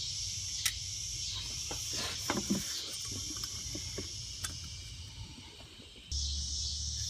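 Scattered light metallic clicks and knocks from handling the loosened fan clutch nuts and wrench, over a steady high chirring of crickets. About six seconds in, a steady low hum starts abruptly.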